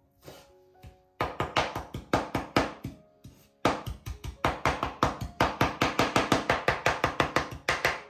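Chef's knife rapidly chopping fresh herbs on a bamboo cutting board: quick, even knocks of the blade on the board at about six a second, in two runs starting about a second in, with a short break near the middle.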